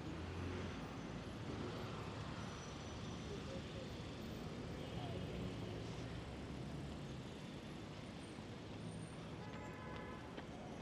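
City street traffic: a steady low engine rumble over a general traffic hiss, with faint voices of passers-by near the end.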